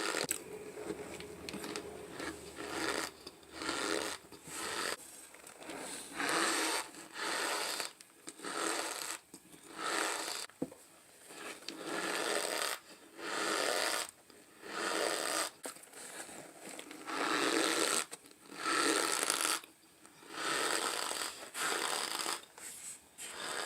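Mouth-chewing of raw cornstarch, making squeaky crunching sounds in repeated bursts about once a second.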